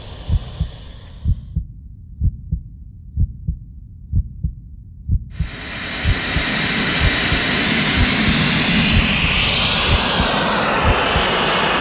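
Steady low thumping throughout. About five seconds in, a loud, even rush of aircraft noise comes in: the engine and propeller of a large fixed-wing UAV in flight.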